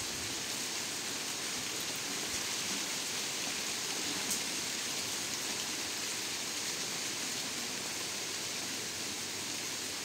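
Steady rain falling, an even hiss, with a single faint tick about four seconds in.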